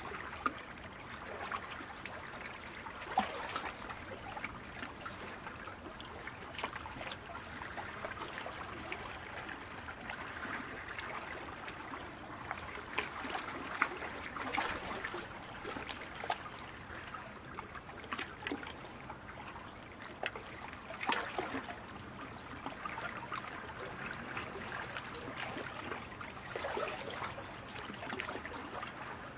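Lake water lapping and trickling, an even watery hiss with small irregular splashes and clicks.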